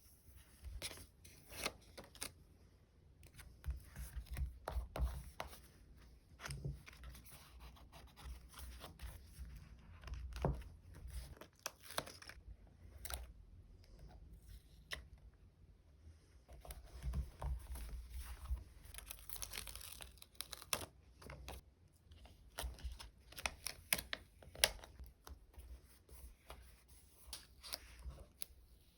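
Close-up stationery handling: stickers being peeled off their backing sheets and plastic (vinyl) packaging rustling, a run of short tearing and crinkling sounds with small taps, one longer rustle about two thirds of the way through.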